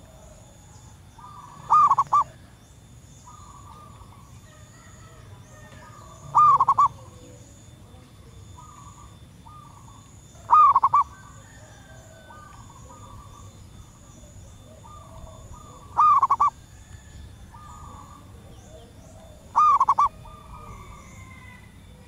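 Female zebra dove giving short, loud cooing calls, five times at intervals of about four seconds: a lure call to draw other doves. Fainter dove calls answer in between.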